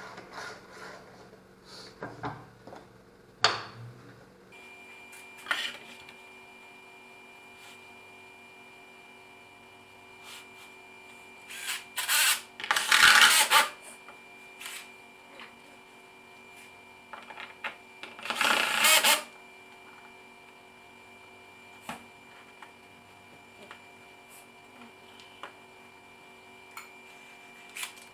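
Makita cordless drill-driver running in two short bursts of about a second and a half each, some six seconds apart, with scattered knocks and clicks of parts being handled on a plywood bench before and between.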